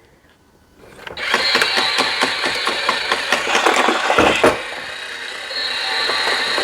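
Toy capsule-dispensing machine (Disney Doorables Squish'alots Squish Machine) starting up about a second in: its small motor and plastic gears whir and rattle with rapid clicking as it picks up a capsule, along with a steady high tone. The clatter eases off a little past halfway and the high tone comes back near the end.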